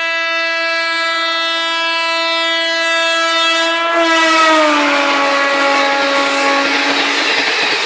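Train horn held as an Indian Railways train approaches, its pitch dropping about four seconds in as the train passes, then fading under the rushing noise of the passing train.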